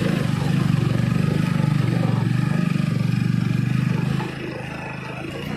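Motorcycle engine running steadily with an even low pulse, dropping to a quieter level about four seconds in.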